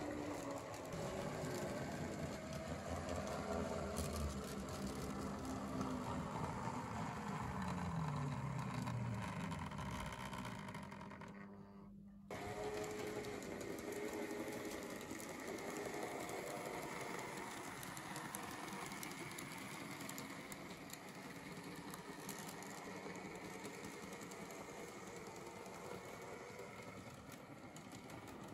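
009 narrow-gauge model trains running on layout track, their small electric motors whining. About seven seconds in the whine slides down in pitch. About twelve seconds in the sound drops out briefly and changes abruptly to a quieter, steadier running sound.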